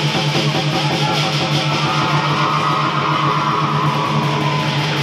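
Music accompanying a lion dance: sustained pitched tones under fast, evenly repeated percussion strokes.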